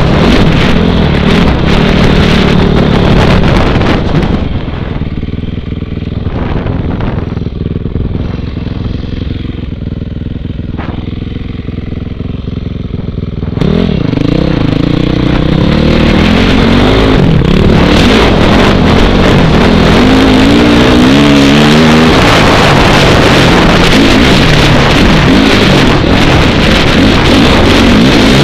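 2006 Honda CRF450R single-cylinder four-stroke on an FMF full exhaust being ridden, with wind rushing over the microphone. For several seconds early on it runs quieter and steadier, then the throttle opens hard again about halfway through and the revs climb, sweeping up once more a few seconds later.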